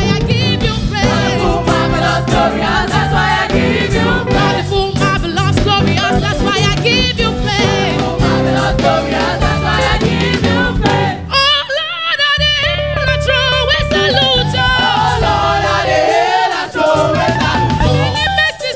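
A teenage gospel choir singing with a live band: drum kit, bass and keys. The bass and drums drop out for about a second around the middle, then come back in.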